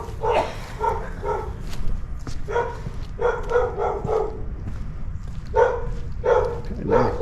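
A dog barking repeatedly, some single barks and some in quick runs of several, over a steady low rumble.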